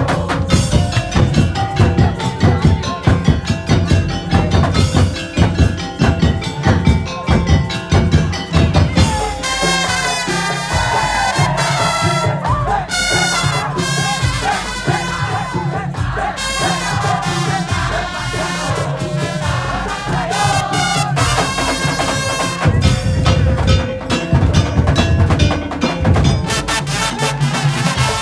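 Madurese tong-tong ensemble playing: rapid wooden slit-drum and drum rhythms with heavy low drum beats, and a wind-instrument melody with bending pitch that comes in about ten seconds in while the low drums ease off, then the heavy drumming returns near the end.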